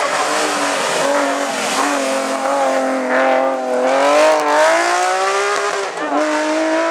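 Race car engine revving hard under acceleration, its pitch climbing steadily, then dropping with a brief dip in loudness at a gear change about six seconds in.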